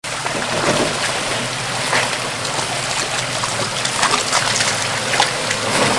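Steady rushing of water with brief splashes, like a creek flowing or being driven through.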